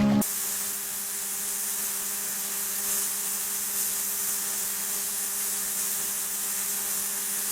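Steady whirring hiss with a faint low hum underneath, like a small motor running, starting suddenly just after the beginning.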